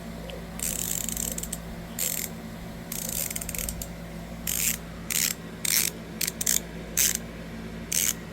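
72-tooth ratchet of an Anex QuickBall 72 ratcheting screwdriver clicking. There is a run of rapid fine clicks about half a second in and a shorter one about three seconds in, and between and after them come single sharp clicks about half a second to a second apart.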